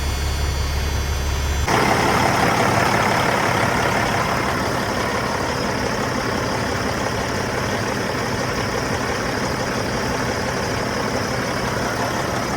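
Caterpillar C15 diesel engine in a Freightliner semi idling steadily, holding about 60 psi oil pressure after a fresh oil and fuel filter change. Its tone changes abruptly about two seconds in.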